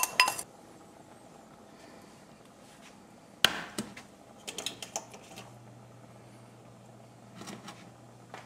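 Kitchen utensils clinking and knocking: a brief clink at the start, one sharp knock about three and a half seconds in, then a few lighter taps, over a faint steady low hum.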